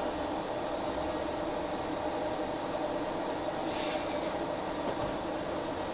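Cooling fans of a freshly powered Geeetech A20 3D printer running with a steady hum, with a brief rasping noise about three and a half seconds in.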